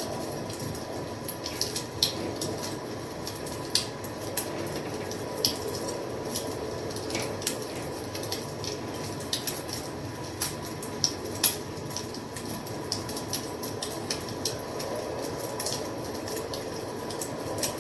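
Wood fire crackling: a steady low rush of burning with irregular sharp pops and snaps, a few of them much louder than the rest.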